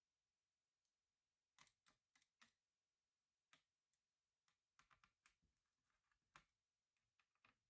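Faint, irregular clicks and taps, about fifteen of them, from small laptop parts and tools being handled while the notebook is worked on.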